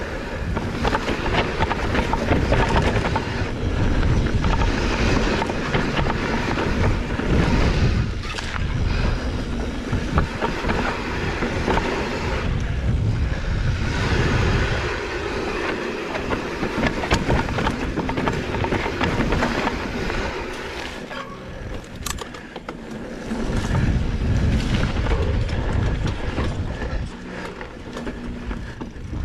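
Mountain bike descending a dirt trail: continuous rumbling noise of the ride that swells and dips a few times as speed and terrain change.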